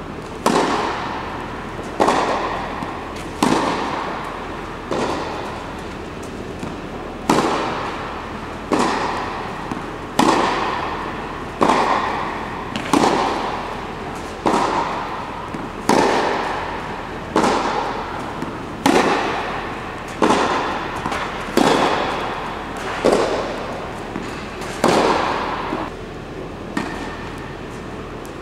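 Tennis racket striking the ball in a steady baseline rally, a sharp pop about every one and a half seconds, each followed by an echoing tail.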